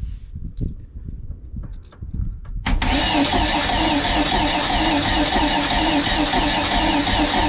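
A few low handling thumps, then about three seconds in the starter cranks a Crusader 454 big-block V8 boat engine steadily for several seconds without firing, its spark and fuel disabled for a compression test. The gauge reads 110 psi, low for this engine, a sign of worn compression.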